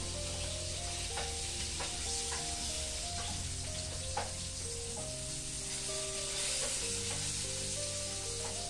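Food sizzling as it fries in a pan, with a spoon stirring and tapping against the pan several times; the sharpest clink comes about four seconds in.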